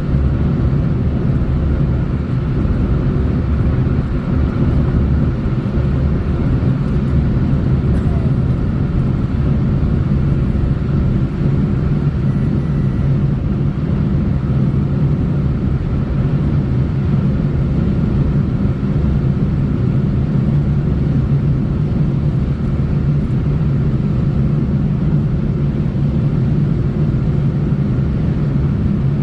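Car driving on the road: a steady, loud low rumble of tyre and engine noise.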